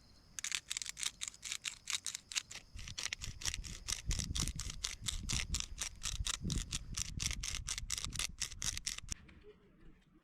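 Rapid, even scraping strokes, about five a second, stopping about nine seconds in.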